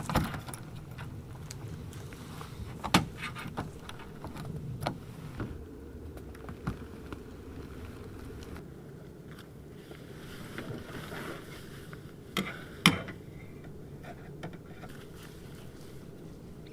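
Steady low rumble, like a vehicle running, with a few sharp knocks or clicks, the loudest pair near the end.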